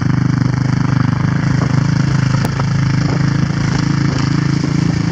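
Quad (ATV) engine running at a steady speed while pulling a line of sleds over snow.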